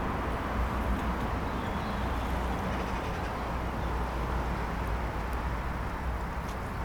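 Steady outdoor background noise dominated by a low rumble, with no distinct events.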